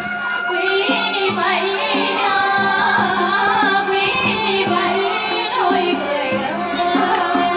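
Women singing a Vietnamese folk song through microphones to live traditional Vietnamese instruments, a bamboo flute among them, with repeated percussion strokes and a steady low tone underneath.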